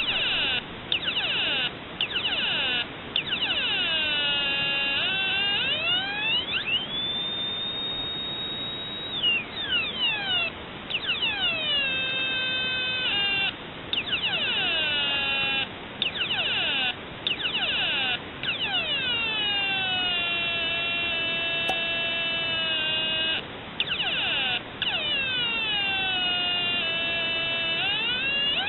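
Homemade two-transistor (BC548 and BD140) siren circuit wailing through a small loudspeaker: a string of falling electronic chirps that change in speed and pitch as its two potentiometers are adjusted, fast rapid chirps in places, slower longer downward sweeps in others. About seven seconds in it holds a steady high whistle for a couple of seconds, and the sound cuts out briefly several times.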